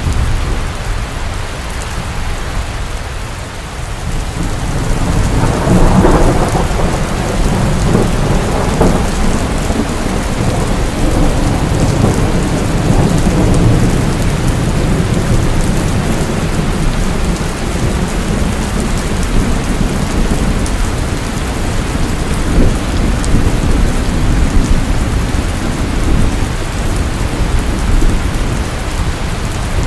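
Steady heavy rain with rumbling thunder. The thunder swells about five seconds in and rolls on under the rain.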